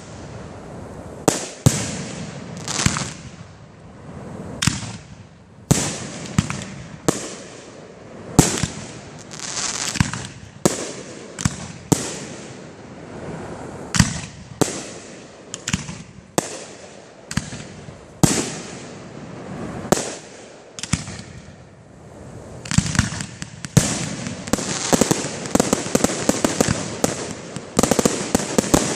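Aerial firework shells bursting one after another, each a sharp bang with an echoing tail, about one or two a second. In the last several seconds the bangs come thick and fast over a continuous crackle.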